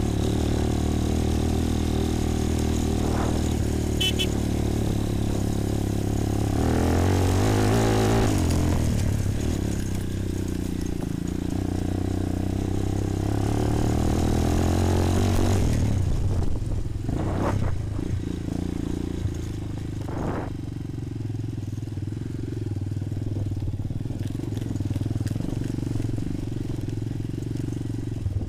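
Bashan 250 quad's single-cylinder four-stroke engine running under way. The revs rise about a quarter of the way in and hold to just past halfway, then drop back, with two short throttle blips after that.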